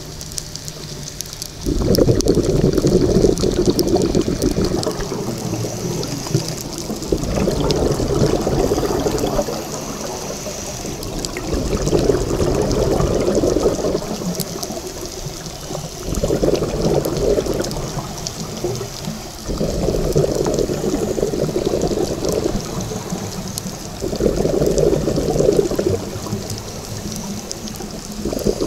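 Scuba regulator heard underwater: a gurgling rush of exhaled bubbles lasting about two seconds, coming about every four to five seconds with each breath, over a faint constant crackle of clicks.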